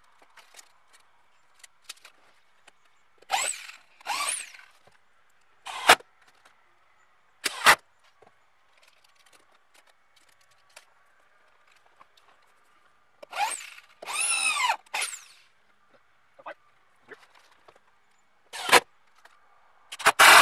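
Cordless drill/driver running in a series of short bursts, driving stainless sheet-metal screws through a plastic hinge strip into wood. The motor's pitch rises and falls during the longer runs, and there are a few brief sharp bursts in between.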